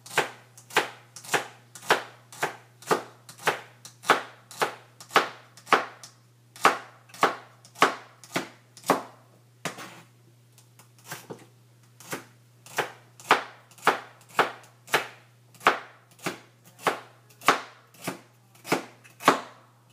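Kitchen knife chopping celery on a cutting board: sharp, even knocks about two a second, with a brief pause about halfway through.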